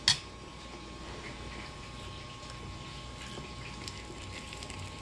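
A metal spoon clinks once, sharply, against a ceramic bowl right at the start, with a short ring. Faint scattered small clicks of eating follow over a steady low hum.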